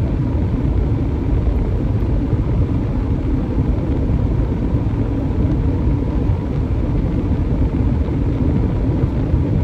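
Steady rumble of road and engine noise inside a moving car's cabin, with a faint steady hum above it.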